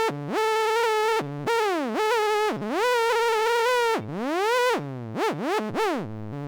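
'Sky trumpet' sound: a buzzy, horn-like electronic tone. It holds a steady pitch, then slides down and back up again and again, with quicker, shorter swoops near the end. The uploader takes the sliding for someone adjusting a tone generator by hand in a test.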